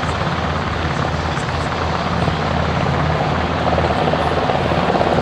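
Mil Mi-17 'Hip' transport helicopter in flight, its main rotor and twin turboshaft engines giving a loud, steady low rotor thrum over turbine noise.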